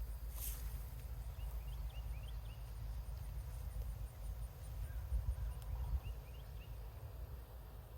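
Outdoor ambience with a steady low rumble, likely wind on the microphone. Over it, a small bird chirps in two short runs of quick notes, and faint, even ticking sounds high up.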